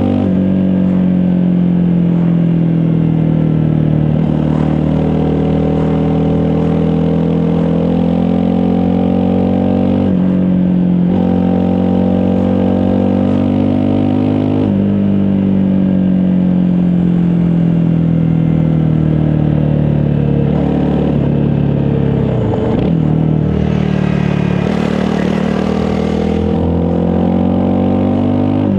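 Honda CRF250 Rally's single-cylinder engine running under way, its note sagging slowly and then stepping back up several times as the throttle and revs change, with a short drop in revs about three-quarters of the way through. A brief rushing hiss follows near the end.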